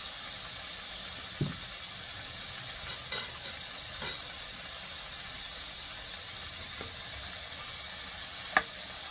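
Battered chicken livers deep-frying in hot oil in an enamelled cast-iron Dutch oven: a steady sizzling hiss. A few light clinks of a metal slotted spoon against the pot come through, the sharpest near the end.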